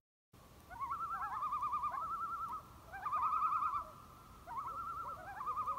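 Wild bird calls: rapidly wavering trills held around one pitch, several voices overlapping, in three phrases of one to two seconds each, starting just under a second in.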